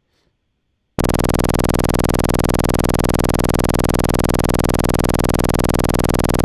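A two-operator FM synthesizer running in the sema engine sounds a steady, buzzy electronic drone. It starts abruptly about a second in, after near silence.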